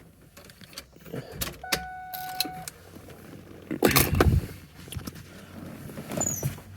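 Plastic interior trim of a car's centre console being handled and pried loose: scattered clicks and knocks, with a loud clatter about four seconds in. A steady electronic beep sounds for about a second near the start, and a brief high squeak comes near the end.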